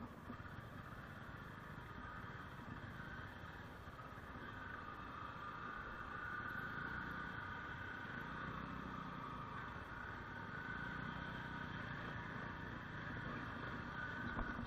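Motorcycle engine running steadily as the bike rides slowly over a rough dirt road, with road noise. It gets slightly louder about midway.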